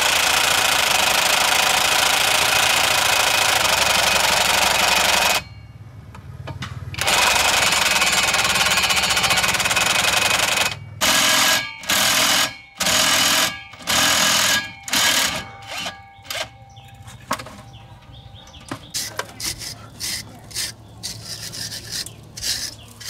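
Impact wrench hammering a driveshaft U-joint flange bolt loose while a ring spanner holds the nut. Two long runs of several seconds with a short gap between them, then a string of short trigger bursts that get briefer toward the end.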